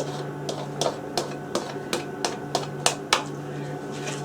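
Egg white being beaten by hand in a pan, the utensil clicking against the pan about three times a second in a steady rhythm.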